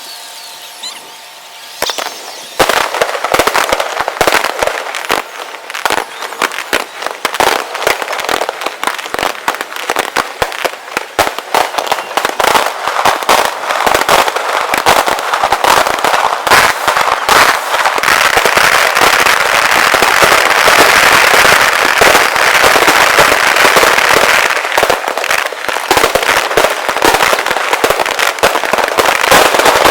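Fireworks show played back sped up: a dense, rapid stream of bangs and crackles begins about two and a half seconds in and thickens into an almost continuous barrage in the second half.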